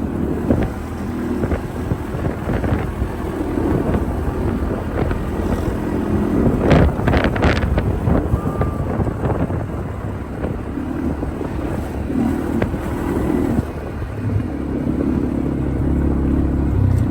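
ATV (quad bike) engine running while riding, with wind buffeting the microphone. A short cluster of sharp knocks comes about seven seconds in.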